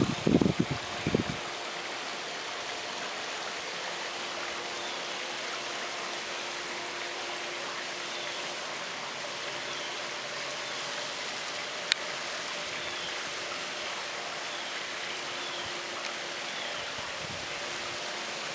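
Steady, even outdoor hiss, with a few faint, short high chirps scattered through it and a single sharp click about twelve seconds in. Low wind buffets on the microphone in the first second or so.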